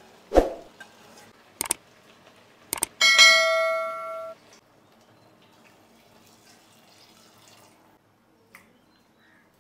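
A few knocks on a metal cooking pot, then a clear bell-like metallic ring about three seconds in. The ring lasts a little over a second and stops suddenly, as if damped by a hand.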